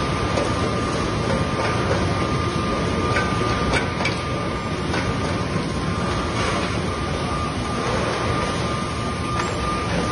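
Burger patty production line running: conveyor belts and machinery make a steady mechanical noise with a constant high whine and a few light clicks.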